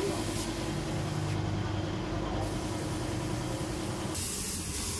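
A steady mechanical hum with a held tone. About four seconds in the tone stops and a steady high hiss takes over.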